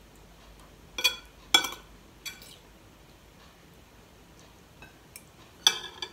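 Metal spoon and fork clinking against ceramic plates and a bowl while eating: a few sharp, ringing clinks, two close together about a second in, a lighter one just after, and another loud clink near the end.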